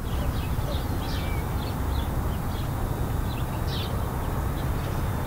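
Small birds chirping, short scattered chirps a few times a second, over a steady low rumble.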